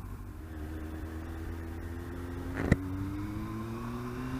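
Yamaha R1's inline-four engine pulling along the road, its pitch rising steadily, under a steady low wind rumble on the microphone. One sharp click comes about two-thirds through.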